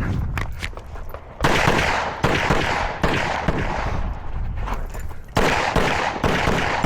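Pistol shots fired during a timed competition stage: several sharp shots at uneven intervals, with pauses between strings, the longest gap about two seconds before the last loud shot.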